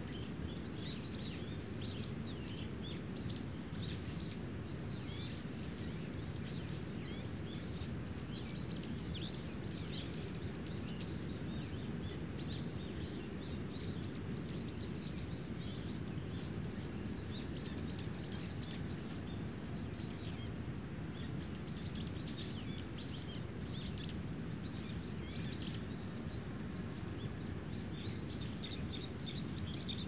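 Small birds singing and chirping in scattered bursts, thinning out for a few seconds around the middle, over a steady low rumble of background noise.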